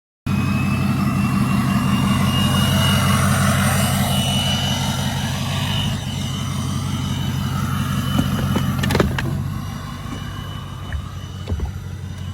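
Jet ski engine running steadily at speed on the water, with a faint high whine that rises slightly early on. About nine seconds in there are a couple of sharp knocks, and then the engine eases off.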